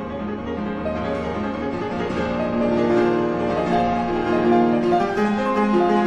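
Instrumental piano music with slow, held notes, growing gradually louder.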